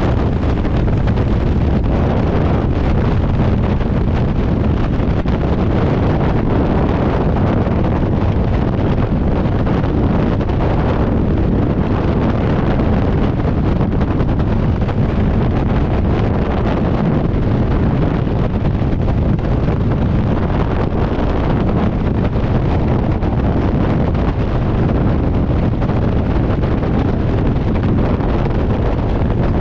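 Loud, steady wind noise buffeting the camera's microphone in skydiving freefall, the air rushing past at freefall speed.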